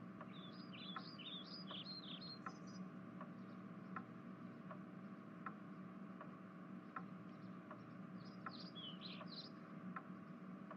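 Faint ticking of a clock, about one tick every three-quarters of a second, over a low steady hum, with two short runs of quick high bird chirps, one in the first few seconds and one near the end.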